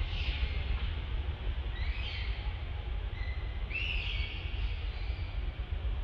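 About three short, high-pitched animal calls, each rising in pitch, over a steady low rumble.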